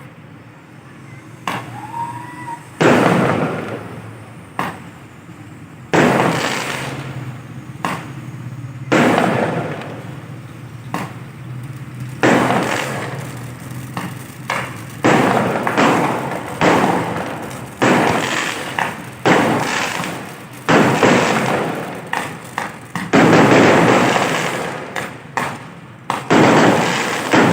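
Aerial fireworks exploding in a long run of loud bangs, one every second or two, each fading out over about a second.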